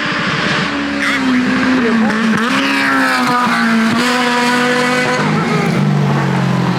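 Off-road race car engine revving hard through the gears, its pitch climbing and dropping several times as it shifts, with a few sharp cracks along the way. The engine sounds healthy and strong.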